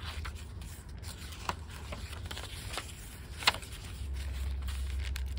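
Paper pages and card pockets of a handmade journal being turned and handled: soft rustling and rubbing with a few sharp paper flicks. A steady low hum runs underneath and gets louder about four seconds in.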